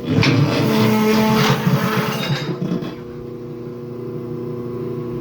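Tire changer's turntable motor running with a steady hum as the wheel rotates, while the tire's upper bead scrapes off the rim over the demount guide for about the first three seconds. After that only the quieter motor hum carries on.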